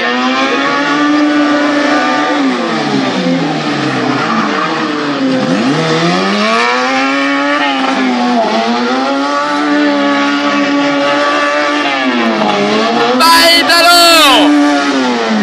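Autobianchi A112 Abarth's four-cylinder engine revving hard and dropping again and again, every two to three seconds, as the car is thrown around a gymkhana course. A loud tyre squeal comes about 13 seconds in, as the car slides around a turn.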